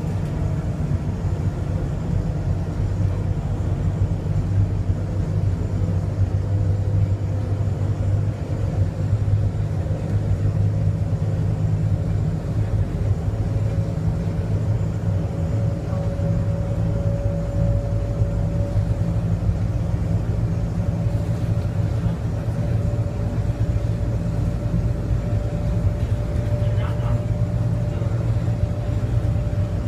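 Bombardier Innovia APM 100 people-mover car running along its concrete guideway on rubber tyres, heard from inside the car: a steady low rumble with a thin motor whine that rises slightly in pitch about midway, then holds steady.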